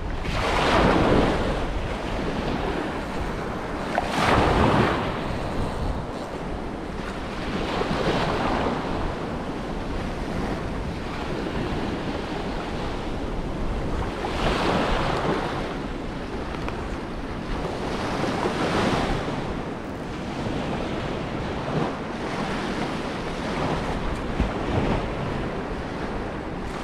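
Small waves breaking and washing up the beach, swelling and falling every few seconds, with a steady wind buffeting the microphone.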